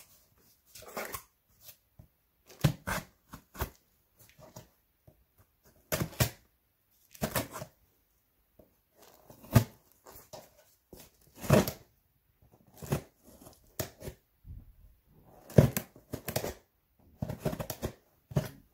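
Scissors cutting the packing tape on a cardboard shipping box, then the cardboard box and flaps being handled and pulled open, in short irregular scratchy bursts and knocks.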